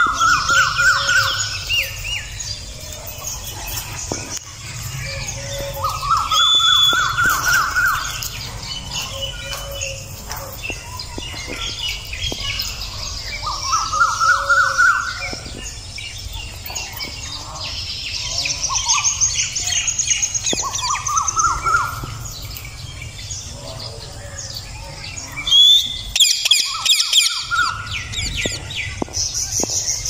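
Birds calling: a rising, chattering call repeats about every six or seven seconds, with higher, shorter chirps in between.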